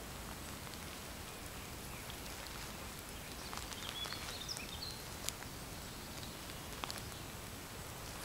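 Shoes stomping through a bed of pansies: soft rustling of leaves and stems and a few light ticks over a steady outdoor hiss. A few short high chirps come around the middle.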